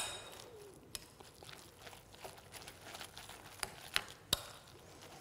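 A hand mixing minced chicken and egg mixture in a glass bowl: soft mixing sounds, with a sharp ringing clink against the glass right at the start and a few lighter clicks near the end.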